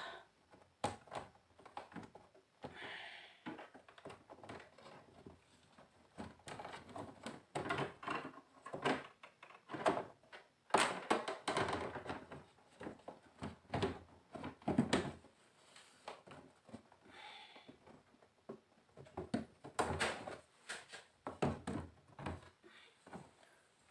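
Irregular knocks, taps and light scrapes from the glass LCD panel of a Sony 32-inch LED TV being handled and seated onto the TV's frame.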